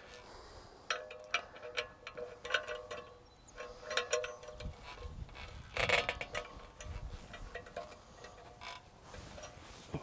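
Removable trailer wheel fender being handled after being lifted off: a scattering of light clicks and clanks with a short metallic ring, the loudest clatter about six seconds in.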